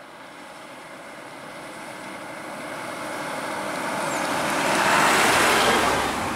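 Rushing road-vehicle noise that swells steadily louder for about five seconds, then cuts off suddenly near the end.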